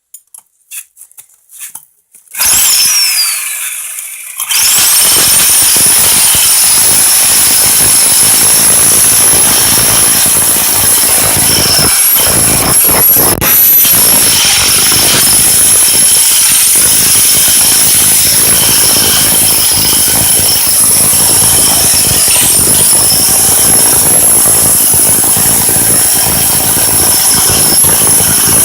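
A few light clinks, then a Bauer 10 amp SDS rotary hammer starts about two seconds in, stops briefly and starts again, and runs continuously, hammering an inch-wide SDS bit into concrete with a high-pitched whine over the loud rattle.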